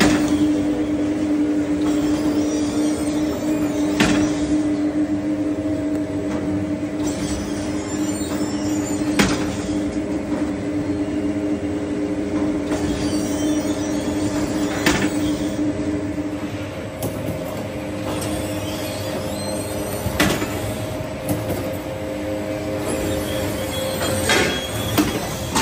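Industrial bread plant machinery running, including a conical dough rounder and conveyors: a steady mechanical hum with two held tones, and a sharp knock about every five seconds.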